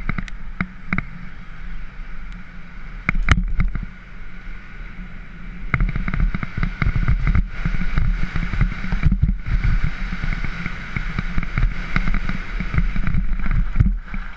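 Mountain bike clattering and rattling over a rough dirt forest trail, with a steady low rumble of tyres and bumps. Scattered knocks give way, about six seconds in, to a dense run of rattling as the ground gets rougher.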